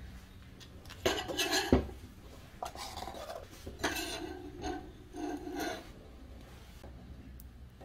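A steel knife blank and its wooden handle pieces being handled and rubbed together: a string of short scrapes and clinks, with one sharp knock a little under two seconds in.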